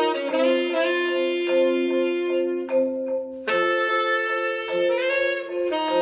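Music played through Dynaudio Contour 20i loudspeakers driven by a Gato Audio DIA-400S amplifier: long held chords of several notes together, changing a few times.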